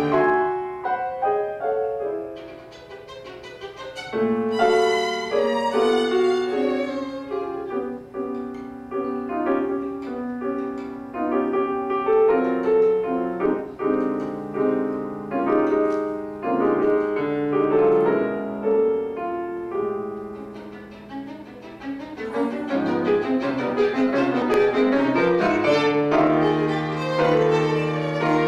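Violin and grand piano playing a classical duo passage live, with busy runs of notes; the music softs briefly about two seconds in and again about two-thirds of the way through, then builds.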